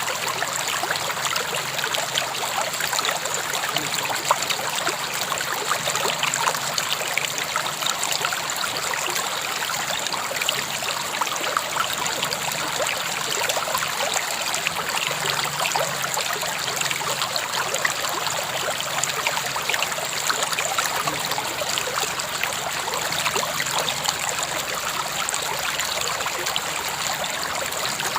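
A river flowing over stones, a steady rushing and splashing with many small trickles and gurgles.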